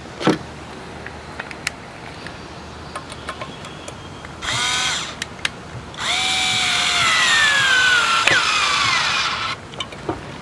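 Electric screwdriver driving a screw. A short burst of the motor comes first, then a longer run of about three and a half seconds whose pitch falls steadily as the screw draws tight under load.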